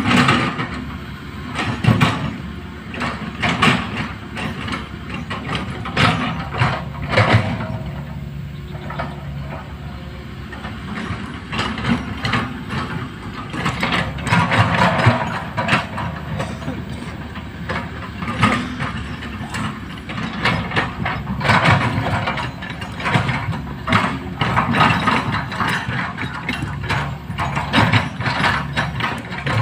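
Large hydraulic excavator at work: its diesel engine runs steadily under repeated irregular metallic clanking and rattling from the tracks and bucket.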